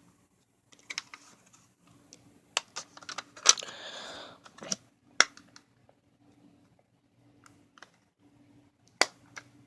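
Handling noise of a plastic smoke alarm: scattered sharp clicks and knocks, the loudest about three and a half, five and nine seconds in, with a short scraping rustle around four seconds.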